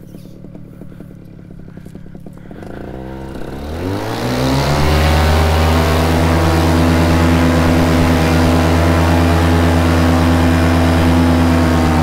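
Paramotor engine idling with a fast ticking beat, then throttled up about three seconds in, its pitch climbing, and held at a steady high-power drone with propeller noise for the takeoff run.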